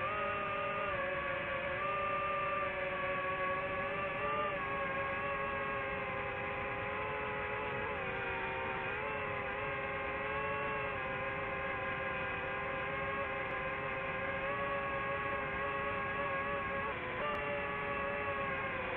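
DJI FPV drone's motors and propellers whining steadily. The pitch sags and recovers briefly a couple of times as the throttle changes.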